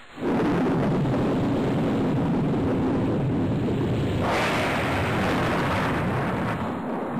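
Thunderstorm sound effect: a long, low rumble of thunder that starts suddenly, joined about four seconds in by the hiss of heavy rain.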